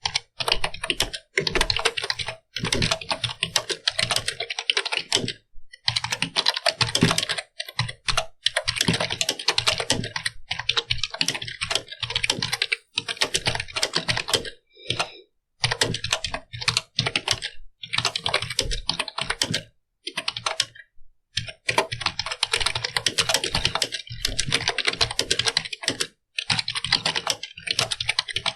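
Computer keyboard being typed on quickly: fast runs of key clicks in bursts of a few seconds, broken by short pauses.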